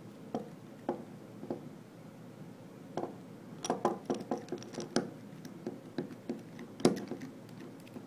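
Metallic clicks and ticks of a pick tool turning the discs inside a Sargent & Greenleaf high-security disc padlock. A few scattered clicks come first, then a quick run of them in the middle, with the loudest near the end.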